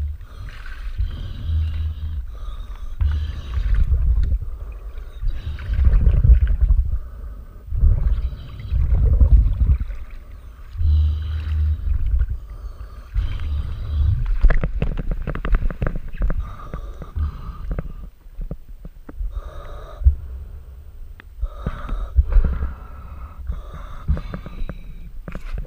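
A diver breathing heavily at the surface in irregular breaths about a second long, with scattered knocks and rubbing close to the microphone.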